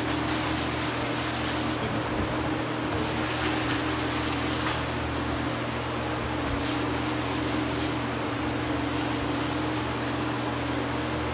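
Wet saltillo tiles being scrubbed and wiped by hand. Quick, rhythmic rubbing strokes come in the first second or two, then come in separate bouts of rubbing over the wet surface. A steady low motor hum runs underneath.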